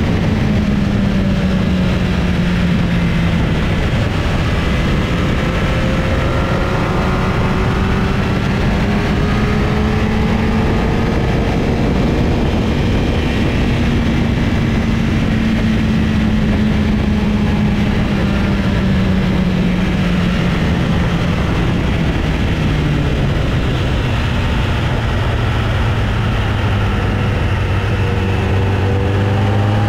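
An engine running continuously over heavy low rumble and rush. Its pitch drifts slowly up and down, drops lower after about two-thirds of the way through, and starts to climb again near the end.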